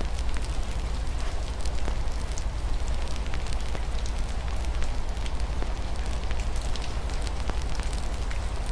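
Wood fire crackling in a fireplace, with frequent sharp pops over a steady low rumble, mixed with a continuous hiss of rain falling against a window.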